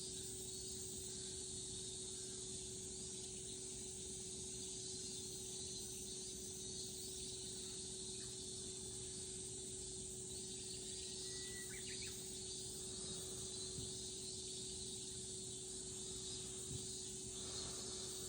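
Steady high-pitched chorus of summer insects, with a steady low hum beneath it and a short bird call about twelve seconds in.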